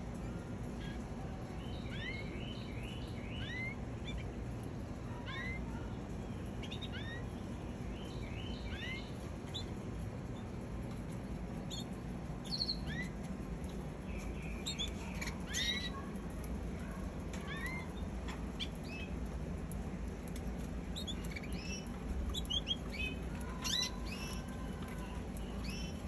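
Canaries chirping: short rising call notes, one or two every second or so, coming thicker in the middle and near the end, over a steady low hum.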